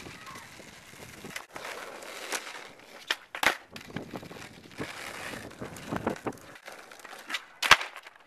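Skateboard wheels rolling on an asphalt court, broken by sharp wooden clacks of the board popping and landing flip tricks; the loudest clack comes near the end.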